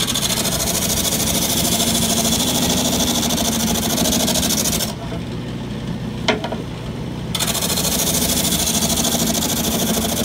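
Wood lathe spinning a homemade sanding drum, with a piece of wood pressed against it in two passes of several seconds each: loud scratchy sanding over the steady motor hum. Between the passes only the hum remains, with a single sharp knock.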